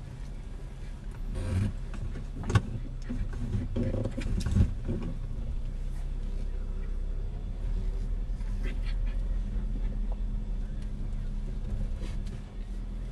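A car driving slowly, heard from inside the cabin: a steady low engine and road hum, with a few sharp knocks and rattles in the first five seconds.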